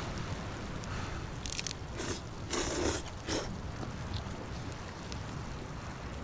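A person biting and chewing crunchy food close to the microphone, with a few sharp crunches clustered about two to three seconds in, over a steady low rumble.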